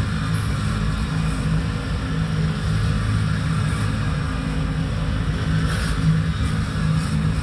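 BNSF freight train's cars rolling past: a steady rumble of steel wheels on rail.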